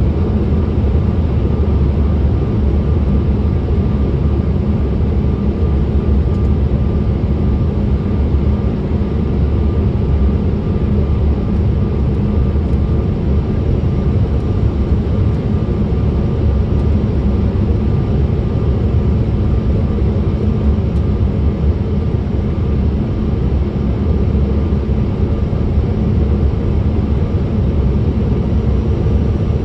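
Steady cabin noise inside a Bombardier CRJ900 jet airliner during its descent: the rear-mounted turbofan engines and the airflow over the fuselage make a low, even drone with a faint steady whine on top.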